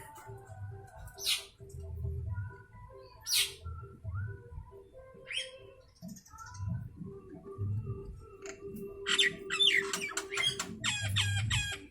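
Asian pied starling (jalak suren) calling: single sharp squawks a couple of seconds apart, then a fast run of chattering, whistled notes near the end.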